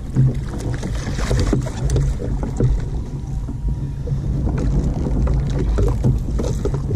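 Wind buffeting the microphone and sea water slapping against a fishing kayak's hull, with a few brief knocks scattered through.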